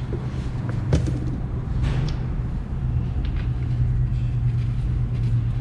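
A steady low mechanical hum, with a couple of short knocks about one and two seconds in.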